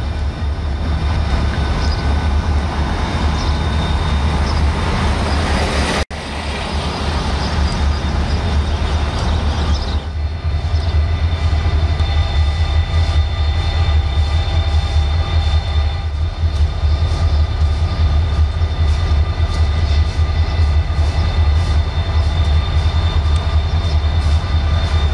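Two Norfolk Southern diesel-electric locomotives running on the main line as they approach and pass close by: a steady, heavy low engine drone with thin high tones over it. The sound drops out for an instant about six seconds in.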